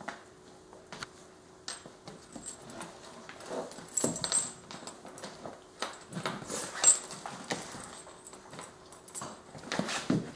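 An adult dog and her six-week-old puppies play-wrestling on a wooden floor: irregular scuffling and paws and claws clicking on the boards, with occasional small dog sounds.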